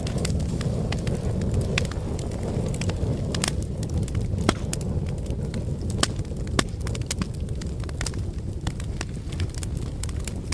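Open fire burning: a steady low rumble of flames with frequent irregular sharp crackles and pops.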